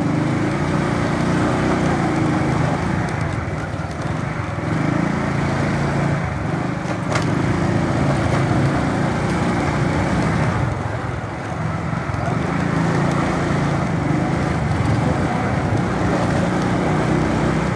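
Honda CD-70's small single-cylinder four-stroke engine running as the motorcycle is ridden, its note easing off and picking up again a couple of times.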